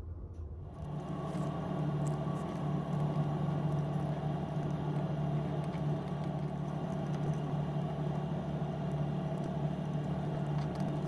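Steady low drone of a ferry's engines heard inside a passenger cabin, coming in about a second in and holding even, with faint crackles of origami paper being folded.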